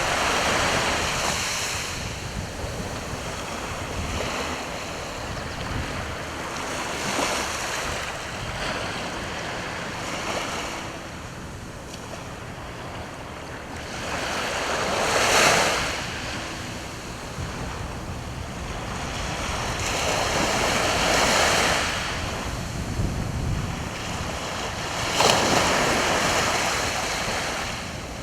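Sea waves breaking and washing onto the shore, swelling and falling several times, the loudest about halfway through, with wind on the microphone.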